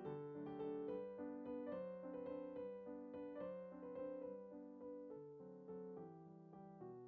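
Background piano music, a gentle melody of evenly paced notes over a lower accompaniment.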